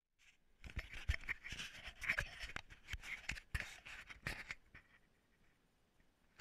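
A run of irregular scratchy scrapes and clicks for about four seconds, then fading to a faint background with a few small clicks.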